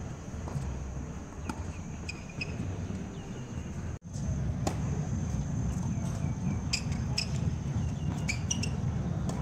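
Tennis ball struck by a racket and bouncing on a hard court: a few sharp hits, the strongest just after a serve, with short high squeaks near the end. Under it runs a steady low rumble and a thin, steady high tone.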